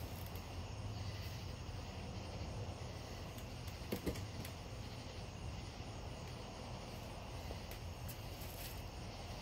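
Outdoor night ambience: a steady low rumble and hiss with faint insect chirping, and a brief knock about four seconds in.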